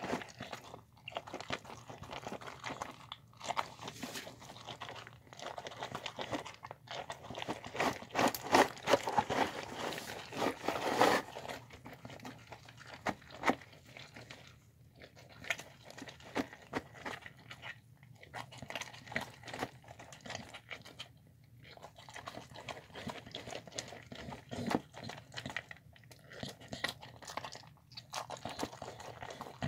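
Dog eating a bowl of rice, chicken and lentils, chewing and biting close to the bowl, with short pauses between mouthfuls. The eating is busiest about eight to eleven seconds in.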